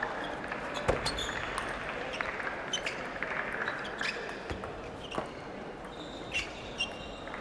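Table tennis rally: the celluloid ball clicks sharply and irregularly off the bats and table, with short high squeaks from the players' shoes over a steady hum of the crowd in a large hall.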